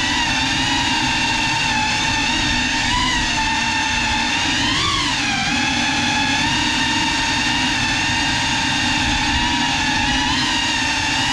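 GEPRC CineLog35 cinewhoop drone's motors and ducted propellers whining steadily, recorded by the GoPro on board. The pitch swells briefly with throttle a few times, most clearly about five seconds in.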